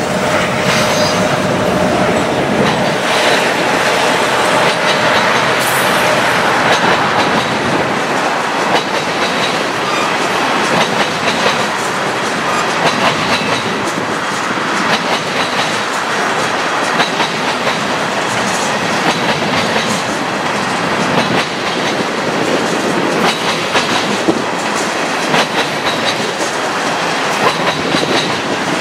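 Freight train's covered hoppers and tank cars rolling past: a steady loud rumble of steel wheels on rail with a repeated clickety-clack of wheels crossing rail joints.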